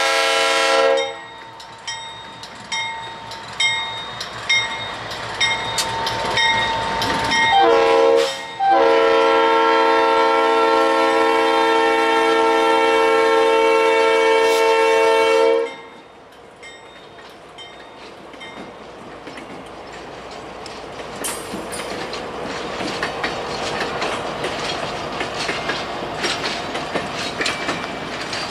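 Diesel locomotive air horn blowing for a grade crossing: a long blast that cuts off about a second in, a short blast, then a long blast of about seven seconds. After the horn stops, the train rolls by with wheels clacking over the rail joints, growing louder toward the end.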